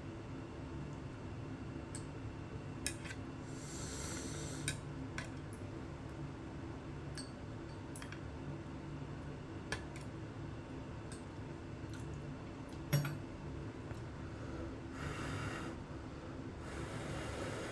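Eating utensils clicking against a ramen bowl, with scattered sharp clicks and the loudest about two thirds of the way through. Short airy rushes come a few times over a steady low hum.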